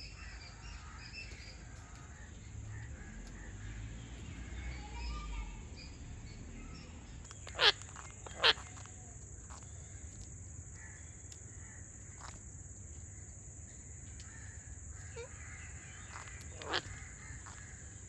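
Indian ringneck parakeet giving two loud, sharp screeches less than a second apart about eight seconds in, followed by a few fainter calls.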